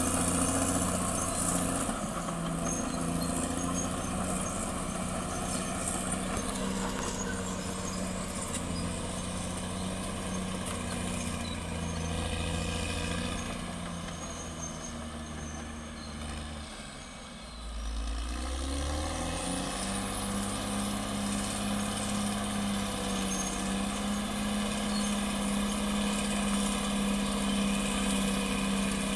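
CAT D6R XL bulldozer's diesel engine running steadily. About two-thirds of the way through, its pitch sinks and it quietens briefly, then it picks back up to a steady, slightly higher note.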